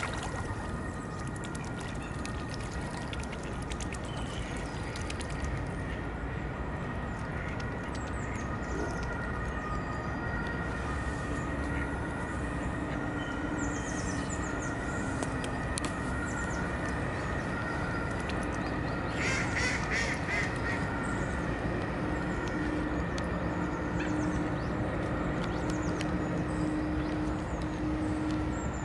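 Mallard ducks quacking, with a quick run of quacks about two-thirds of the way through, over a steady low background noise and faint small-bird chirps.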